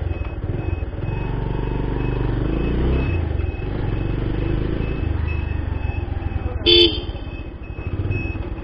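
Bajaj Pulsar 150's single-cylinder engine running as the motorcycle rides off at low speed, the revs rising a little and then easing. Late on, a single short horn toot.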